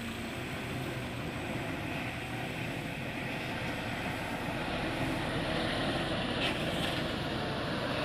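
A vehicle engine running steadily under road noise, growing a little louder, with a brief hiss about six and a half seconds in.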